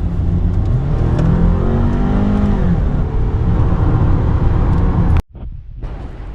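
Car engine and road rumble heard from inside the cabin as the car accelerates: the engine pitch rises and then eases off. The sound cuts off abruptly about five seconds in.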